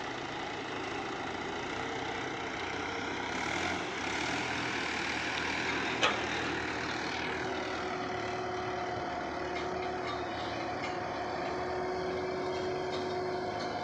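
Diesel tractor engine running steadily under load while hauling a loaded trailer through water and mud. A single sharp knock about six seconds in, and a steady whine from about seven seconds on.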